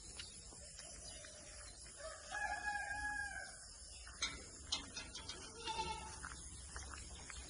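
A rooster crowing once, a pitched call about a second long, followed later by a shorter, fainter animal call and a few sharp clicks.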